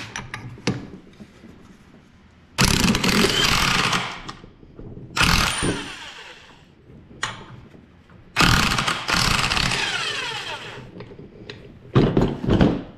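Corded electric impact wrench hammering on the centre bolt of a flywheel puller in four separate runs, the longest of about two seconds winding down as the trigger is let go. The puller is working the flywheel loose from its crankshaft taper.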